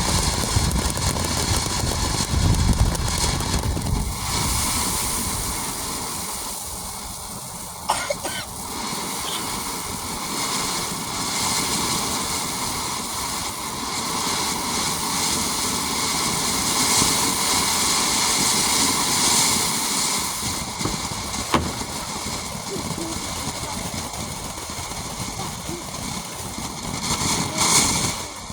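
Phantom Serenity Noiseless ground fountain spraying sparks with a steady hiss, broken by a couple of sharp crackles.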